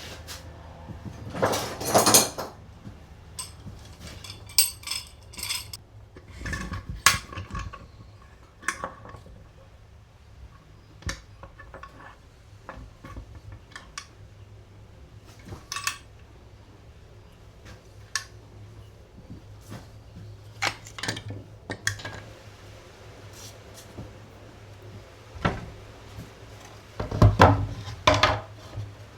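Small metal parts clinking and knocking as they are handled, at irregular intervals, with louder clattering bunches about two seconds in and again near the end.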